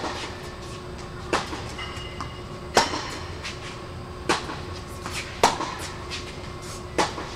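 Tennis ball being hit back and forth in a rally on an indoor court: a sharp pop of racquet strings or a ball bounce about every second and a half.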